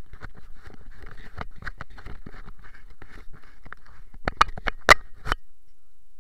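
Camera handling noise: dense rustling and clicking as the camera is shifted against clothing and bedding, with a few sharper knocks between four and five seconds in. It stops soon after.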